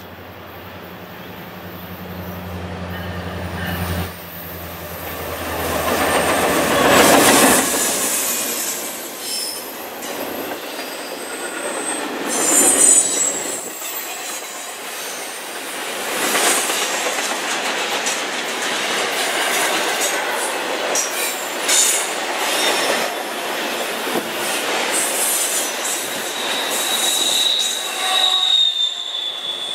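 Diesel-hauled intermodal freight train: the locomotive's engine hum grows as it approaches and it goes by loudest about seven seconds in. Then the container cars roll past, their wheels clicking and running steadily on the rails, with high thin wheel squeals a few times on the curve, one near the end.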